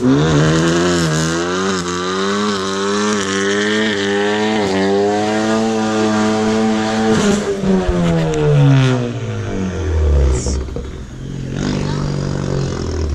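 A car engine revving hard in a burnout: the pitch climbs in the first couple of seconds, is held high under a hiss for several seconds, then falls away near the end.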